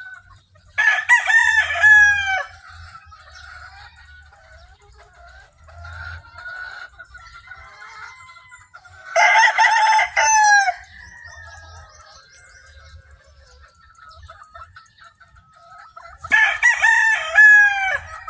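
A rooster crows three times, each crow about two seconds long and loud, spaced roughly seven seconds apart. Quieter clucking from hens fills the gaps between the crows.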